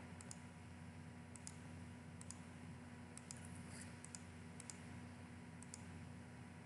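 Computer mouse button clicking, about seven faint clicks roughly a second apart, each a quick press-and-release pair, over a steady low hum.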